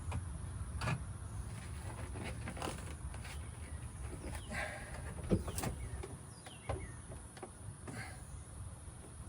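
Irregular clicks, knocks and short scrapes from hand work on a car's interior trim and panels, with one sharper knock about halfway through.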